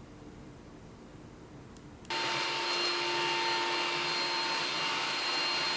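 Makita DVC260 cordless vacuum cleaner switching on about two seconds in, reaching full speed at once and then running steadily with a high whine.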